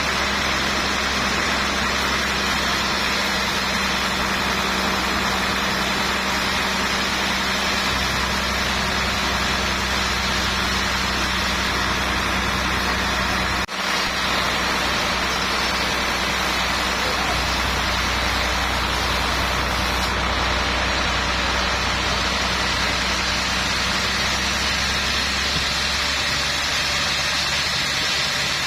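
Sawmill machinery running steadily with an even engine-like hum and noise, broken by one brief dropout about fourteen seconds in.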